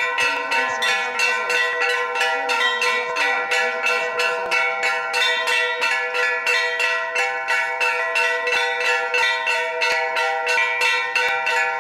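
A metal bell struck over and over in quick, even strokes, about four a second, each strike ringing on into the next so that the bell's tones hang on.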